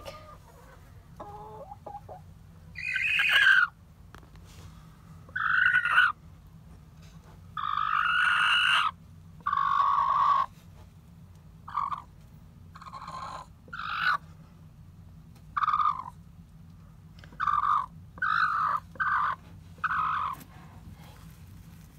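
Hen sitting on her nest giving about a dozen harsh, drawn-out squawks of varying length, some over a second long, as a hand reaches under her: the defensive call of a hen guarding her nest, which the owner says sounds like a dinosaur.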